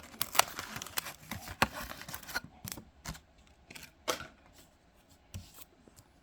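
A trading-card booster pack's plastic wrapper crinkling and being torn open, in a dense run of sharp crackles and clicks for the first couple of seconds, then a few scattered clicks as the pack and cards are handled.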